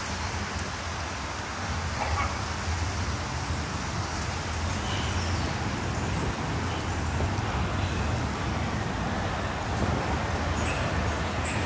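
Steady low rumble of city street traffic, with a few faint short high sounds on top.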